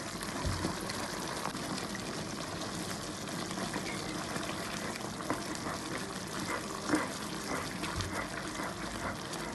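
Spatula stirring thick, wet cream sauce in a nonstick wok: soft squelching and sloshing over a steady hiss, with a few short scrapes or taps of the spatula against the pan.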